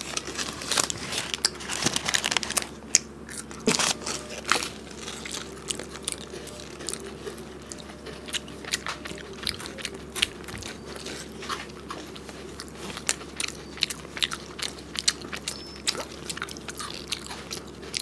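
Two people biting and chewing KitKat chocolate-covered wafer fingers: many crisp, crackly crunches, dense for the first few seconds and thinning out to scattered crunches after about five seconds.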